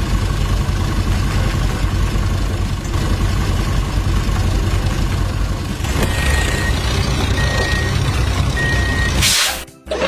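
Truck engine running steadily, with three short reversing beeps in the second half. A brief rushing noise near the end, then the sound drops away.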